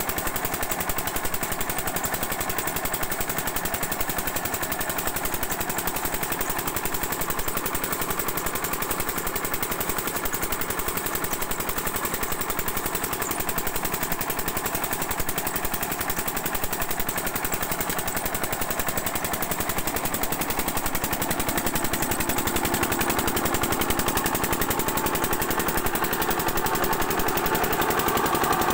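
Single-cylinder 8 hp diesel water-pump engine running steadily under load, its exhaust beat a rapid, even chugging. It grows a little louder over the last few seconds.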